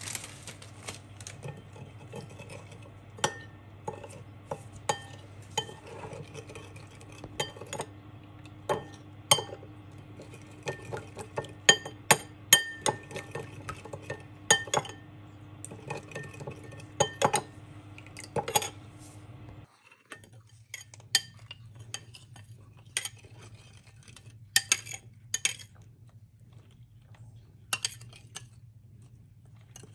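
A metal spoon stirring a thick oil-based dressing in a ceramic bowl, clinking against the bowl's sides in a long run of sharp clinks. About two-thirds of the way through the sound cuts off abruptly, and fewer, scattered clinks follow.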